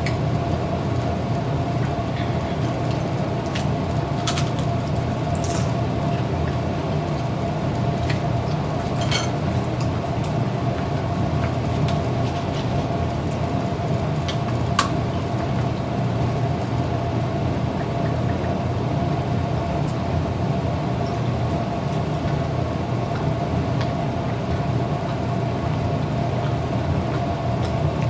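A steady, even, machine-like hum with a held tone, and a few brief faint clicks and taps from someone eating.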